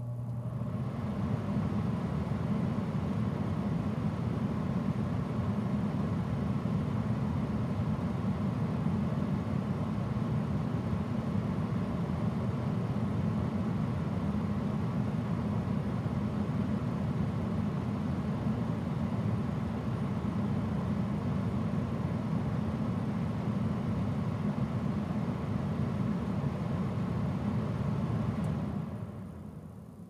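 Gas furnace running: a steady low rumble with a fainter hiss above it, which dies down near the end.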